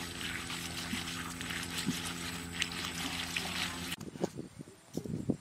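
Water trickling over stone, with a steady low hum under it, cutting off abruptly about four seconds in; after that only quieter outdoor sounds with a few short soft knocks.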